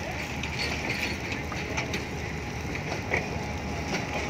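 Passenger train coaches rolling past, their wheels clicking irregularly over rail joints and points above a steady rumble.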